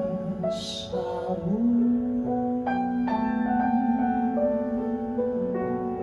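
Live piano accompaniment, with a long held sung note wavering slightly in pitch over it from about a second and a half in until near the end.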